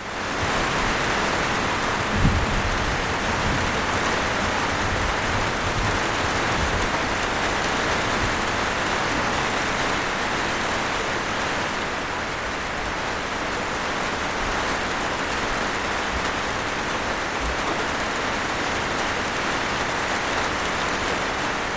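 Rain falling steadily, an even hiss of drops on surfaces, with a brief low thump about two seconds in.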